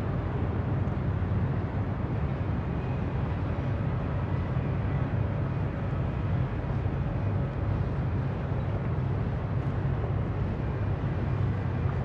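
Harbour ambience: a steady low engine drone from boat traffic on the water.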